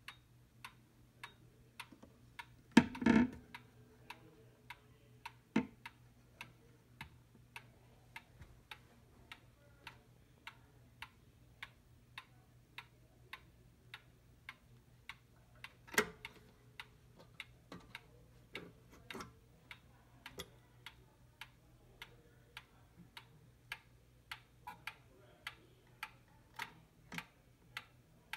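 D&A regulator wall clock's pendulum movement ticking steadily, an even tick-tock. A louder knock with some rustling comes about three seconds in, and another sharp knock around the middle.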